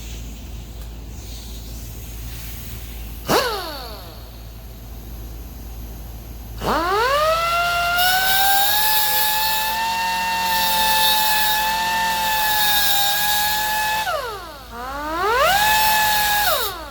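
Pneumatic die grinder with an abrasive disc, working the hedge trimmer blade. A short blip of the trigger winds down about three seconds in. Then the grinder spins up to a steady high whine with hissing for about seven seconds, dips briefly, revs up again and winds down near the end. The disc is worn enough that it needs replacing.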